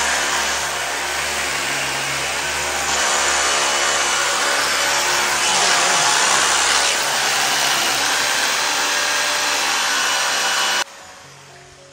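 Electric power tool motor whirring steadily at one pitch, then cutting off suddenly near the end.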